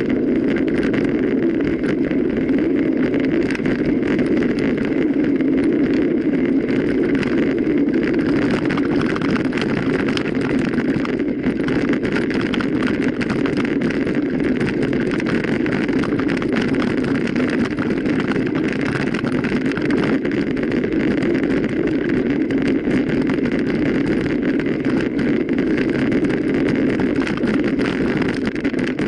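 Mountain bike ridden over rough ground, heard close up: a steady rushing drone of tyres and wind on the microphone, with constant fine rattling and clicking.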